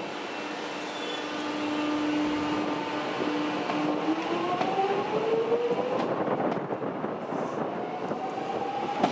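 Electric suburban train's traction motors whining as it pulls away: the whine holds a steady pitch, then from about four seconds in rises steadily as the train gathers speed, over the rumble of the train.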